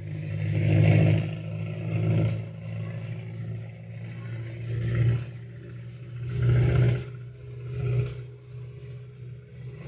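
A vehicle engine running steadily, with rushing noise that swells and fades about five times, as of traffic passing.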